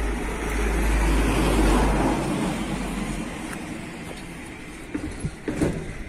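A car passing by on the street, its noise swelling and then fading over a few seconds. A couple of short knocks follow near the end.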